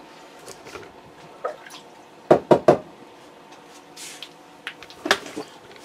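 Clatter of things being handled out of sight: three quick knocks a little over two seconds in, a short hiss around four seconds, and another knock near the end, over a steady low hum.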